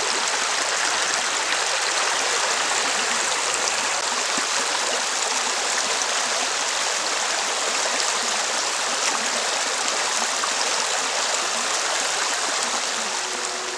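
Steady rushing of running water, as of a stream.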